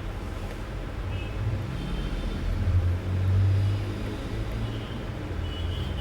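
A motor vehicle's low engine rumble passing by, swelling to its loudest about halfway through and then fading, over a steady background hiss.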